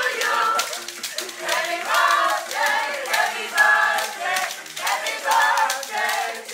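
A group of people singing together, with hand claps along the way.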